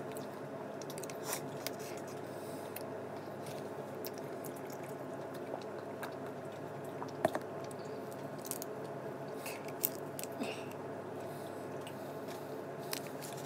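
Cooked shrimp being peeled by hand and chewed: soft crackles of shell, wet squishing and chewing, and a few sharp clicks, over a steady low background hum.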